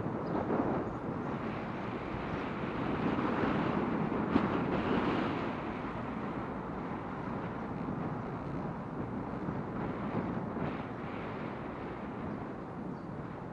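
Steady noise of a moving vehicle with wind on the microphone, and a short knock about four seconds in.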